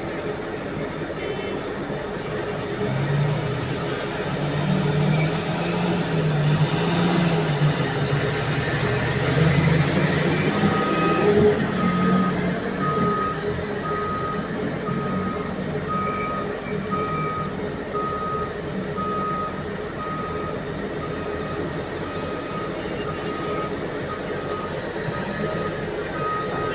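Diesel engines of heavy mining machinery, an excavator and a haul truck, running; the engine note rises and works hard for several seconds with a high whine over it, then a reversing alarm beeps steadily about once a second from roughly ten seconds in.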